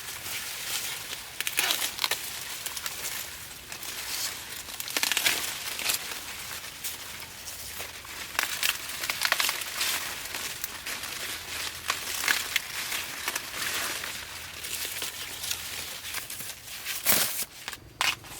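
Dry corn leaves and husks rustling and crackling as they are handled, in irregular bursts with occasional sharp snaps, the loudest near the end.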